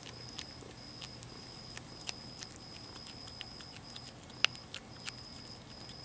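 Young Virginia opossum crunching dry cat food kibble: irregular sharp crunches, with one much louder crack about four and a half seconds in.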